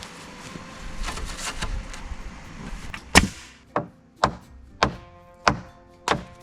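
Hammer blows: after about three seconds of scuffing, six sharp strikes land about every half second or so, each leaving a ringing tone.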